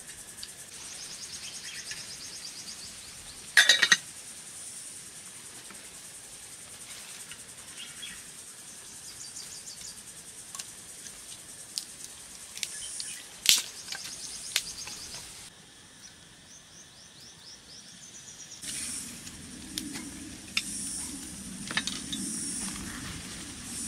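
Insects trilling in repeated high bursts over a steady high insect drone, broken by a few sharp clicks and knocks. About three-quarters of the way through, a low rushing noise comes in underneath.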